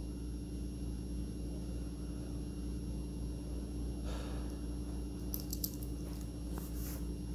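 Mostly a steady low hum, with faint handling noises of gloved hands on a steel watch and bracelet: a soft rustle about four seconds in and a few light clicks a little after.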